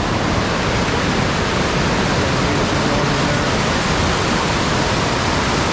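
Steady rushing of water over the rapids of a mountain creek.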